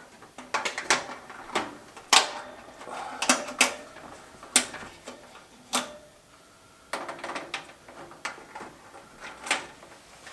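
Irregular sharp clicks and knocks of a flathead screwdriver and metal heater parts being handled while wiring terminals, with a short lull in the middle.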